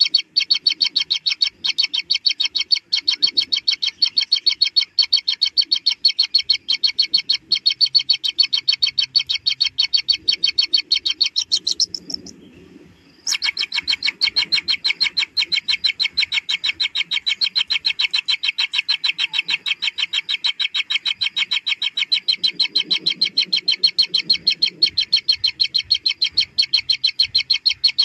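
Kingfisher nestlings' begging calls: a rapid, even train of high chirps at about four a second, broken off for a second or so about twelve seconds in and then resuming.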